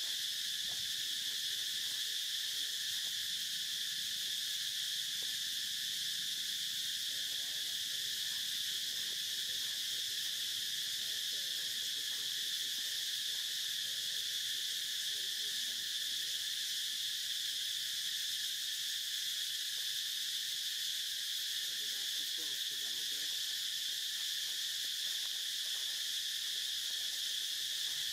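Steady insect chorus: a constant, high-pitched drone of crickets or cicadas with no breaks.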